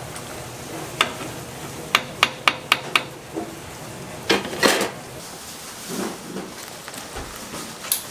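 Kitchen utensils and dishes clattering: a single clack about a second in, then a quick run of five sharp clacks, and a couple of longer scraping knocks a little later.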